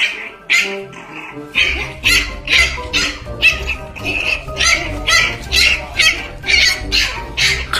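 Background music with a steady beat, its bass coming in about one and a half seconds in, over which a puppy yelps.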